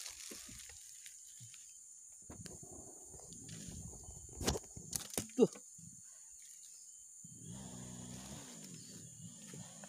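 Steady high-pitched drone of insects in a forest, with a few sharp knocks about halfway through.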